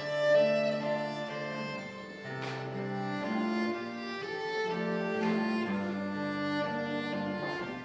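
Instrumental music led by bowed strings: a violin melody of held notes moving in steps over low sustained notes.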